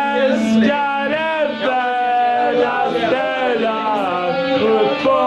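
Singing with musical accompaniment: a voice holding and bending sung notes over steady lower tones.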